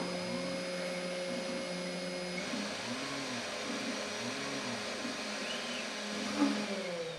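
Shapeoko CNC router doing an air cut: the Quiet Cut DC spindle motor runs with a steady hum while the stepper motors whine in rising-and-falling arcs, about one a second, as the gantry moves. The spindle's hum shifts in pitch about two seconds in, and near the end its tone starts to fall as it winds down.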